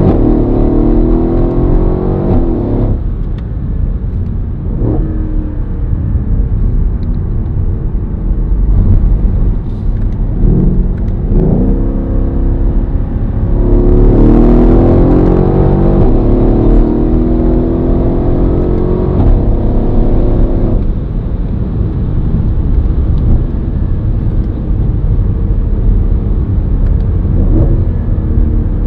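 Twin-turbo V8 of a Mercedes CLS63 AMG Shooting Brake, tuned by RENNtech with an ECU remap, new downpipes and high-flow sport catalysts, heard from inside the cabin as the car accelerates hard. The revs climb and step through upshifts in two long pulls, one at the start and one about halfway, with short bursts of throttle between, then the engine settles to steadier, quieter running near the end.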